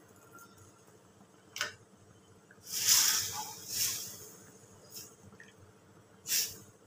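A spatula stirring thick curry in a metal pan: about five short scraping strokes, the loudest and longest about three seconds in.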